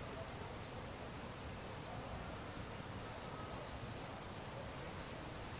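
Quiet outdoor garden ambience: short high chirps repeat about every half second over a faint, steady high-pitched whine.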